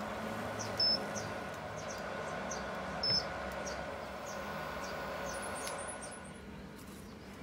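Beaten egg sizzling steadily in a nonstick frying pan on an induction hob, with two short high beeps about one and three seconds in. The sizzle fades near the end.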